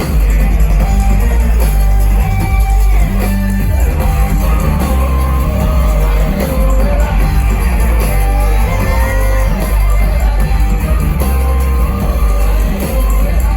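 Live jam band playing an instrumental passage: guitar lines over heavy bass and drums, loud and continuous, with some crowd shouting.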